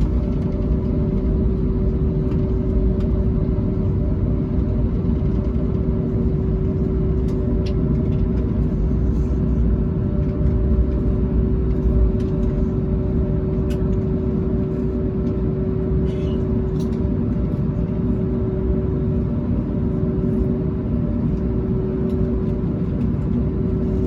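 Cabin noise of an Airbus A321neo with its Pratt & Whitney geared turbofans running at steady power: a low rumble with a constant hum that holds without rising or falling. A few faint ticks sound over it.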